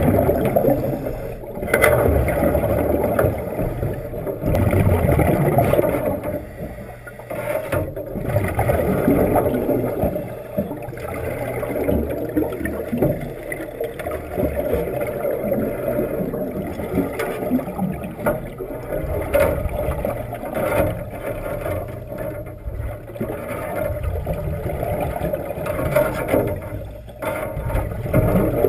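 Underwater bubbling and rumble from a hard-hat diver's helmet exhaust, surging and easing every few seconds with the diver's breathing.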